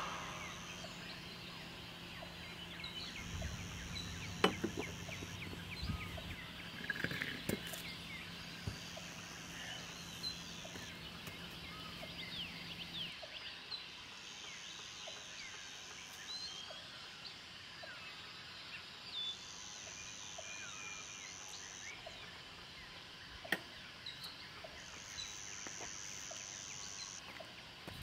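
Faint morning birdsong by a lake: many short chirps and calls, with a high buzzing trill of about two seconds repeating every five seconds or so. A faint low hum stops about halfway, and there are a couple of soft knocks.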